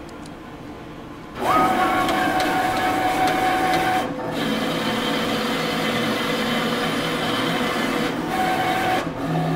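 Vinyl cutting plotter cutting a pattern in window tint film. About a second and a half in, its motors start with a brief rising whine, then run steadily as the cutting head and film move, with short breaks about four seconds in and near the end.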